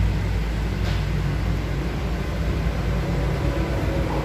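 Steady low background rumble with a hiss over it and no distinct events.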